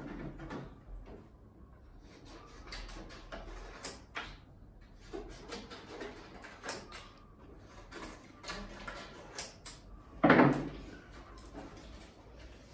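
Props being handled on a table: scattered light knocks, clicks and rustles, with one louder knock about ten seconds in.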